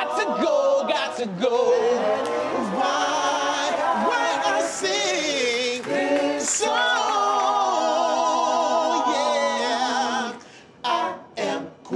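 Male a cappella vocal group singing doo-wop harmony, holding long chords with vibrato, no words picked out; the singing breaks off about ten seconds in, leaving a few short sounds.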